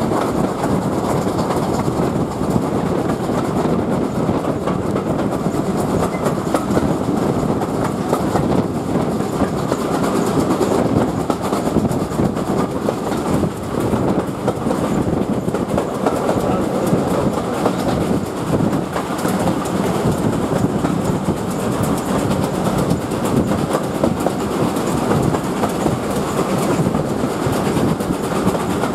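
Steam-hauled passenger train running, heard from a carriage window: a steady rumble with the clatter of the coaches' wheels over the track, unbroken throughout.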